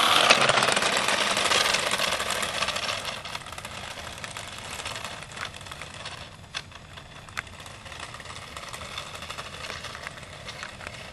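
A small RC car's electric motor and tyres running, loudest over the first couple of seconds and then fading to a lower whir. Scattered sharp clicks come through the rest.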